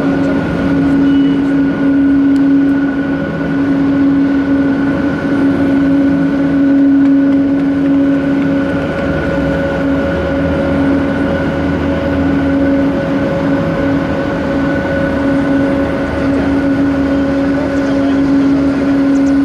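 Steady airport machinery drone from aircraft or ground equipment: a constant low hum with a fainter high whine above it, holding the same pitch throughout.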